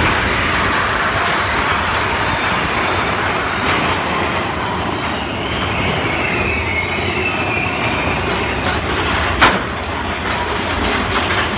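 Steady rushing, rumbling noise of a ride vehicle moving in the dark, with faint wavering high squeals and one sharp click about nine and a half seconds in.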